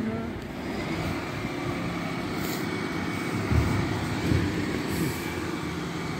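Refuse collection lorry's diesel engine running steadily, with a thin steady whine over it from about a second in and a couple of low thuds midway.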